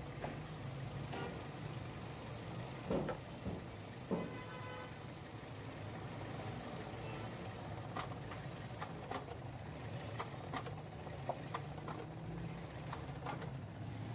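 Car engine idling steadily in the engine bay, with scattered clicks and knocks as hands fit wiring and a plastic connector onto the EVAP purge vacuum switching valve.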